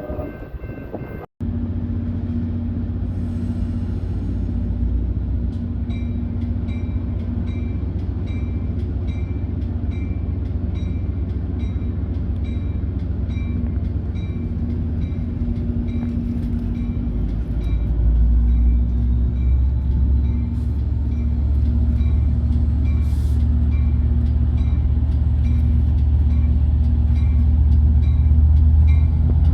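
Diesel train rumbling steadily, growing louder about two-thirds of the way through, with a short ringing tone repeating about once a second.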